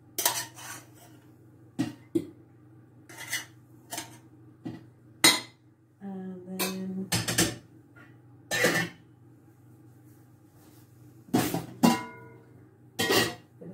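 A metal spoon knocking and scraping against a stainless steel saucepan and china plates while couscous is served out: a string of separate clinks and knocks. Near the end an enamel roasting dish lid clanks as it is lifted, with a brief ring.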